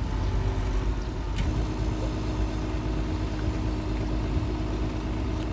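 Heavy diesel engine of an excavator running steadily, with a single knock about one and a half seconds in, after which a steady hum sets in.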